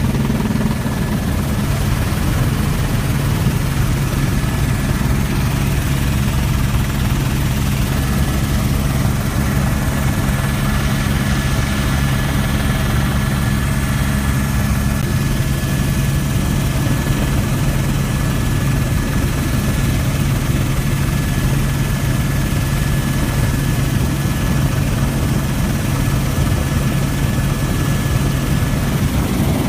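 Helicopter in flight heard from inside the cabin: steady rotor and engine drone with a thin high whine above it. The deepest part of the drone thins a little about halfway through.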